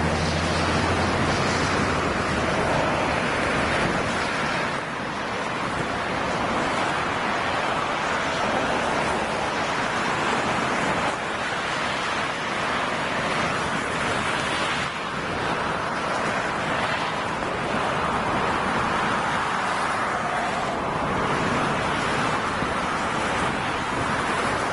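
Freight train rolling past at a distance: a steady rushing noise of wagon wheels on the rails that holds without a break. A low engine hum fades out about a second in.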